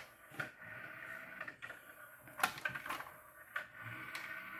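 Sony TC-C5 five-cassette changer deck's mechanism cycling to swap cassettes: several sharp clicks and clunks with a faint motor whir between them. The mechanism is working properly after repair.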